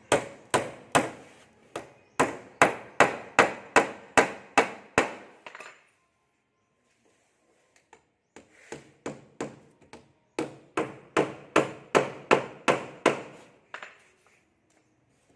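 Hammer blows on wood, quick and steady at about four a second, in two runs with a pause of about three seconds between them.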